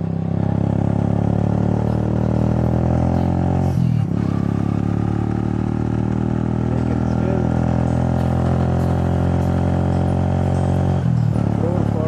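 Motorcycle engine running steadily as the bike is ridden on the road. The engine note briefly drops and picks up again twice, about four seconds in and near the end.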